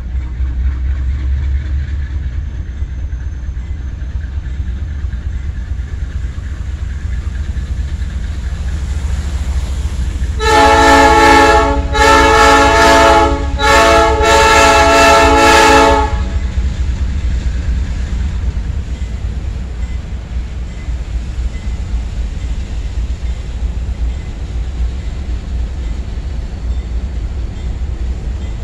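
Diesel locomotive's multi-note air horn sounding four blasts, long, long, short, long, about ten seconds in, over a steady low rumble from the approaching train.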